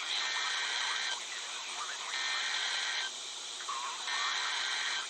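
NOAA Weather Radio SAME header data bursts: three harsh, buzzy digital warbles, each about a second long and a second apart, the coded header that opens an Emergency Alert System warning broadcast.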